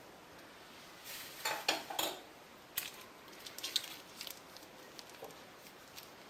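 A spoon clinking and scraping against dishes: a quick run of scrapes and taps, then a few separate clicks and lighter ticks.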